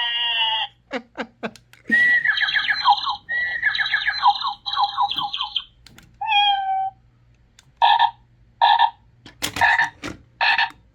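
Avantek wireless doorbell chime's speaker playing one short ringtone after another as its tones are stepped through, with clicks of the selector button between them. There is a run of repeated chirps, a single held tone, then short paired bursts.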